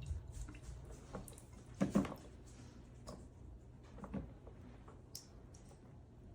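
Water dripping and squishing out of the bottom of a Hoover FloorMate hard floor cleaner that is switched off: a leak. A few scattered soft drips, the strongest about two seconds in.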